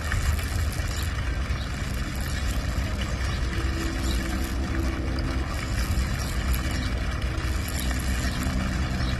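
Falling water rushing steadily, a continuous dense splashing roar.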